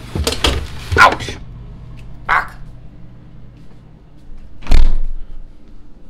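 Clatter and cardboard rustle of a can being pulled out of a torn cardboard Coca-Cola fridge pack, then a single loud thump about three-quarters of the way through.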